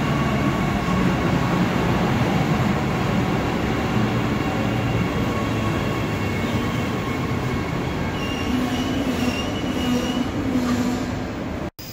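Queensland Rail electric suburban train moving along the platform: a steady rumble of wheels on rail with a motor hum, and a thin, high wheel squeal over the last few seconds. The sound cuts off suddenly near the end.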